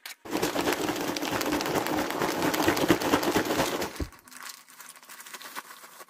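Paper microwave popcorn bag crinkling and rustling as it is handled and opened: a dense, loud crackle for about four seconds, then softer scattered crinkles.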